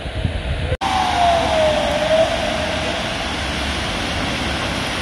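Heavy rain falling steadily, with road traffic on the wet street. Just after a sudden cut about a second in, a single tone glides downward for about a second.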